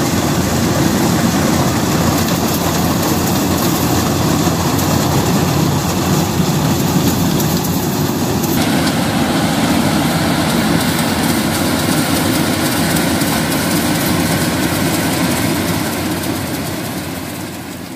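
Yanmar rice combine harvester's diesel engine and threshing machinery running steadily as it cuts through the rice crop, fading out near the end.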